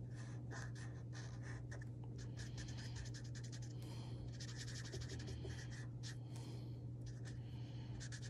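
Felt-tip Mr. Sketch marker scratching across paper in quick, irregular back-and-forth strokes as an area is coloured in, over a steady low hum.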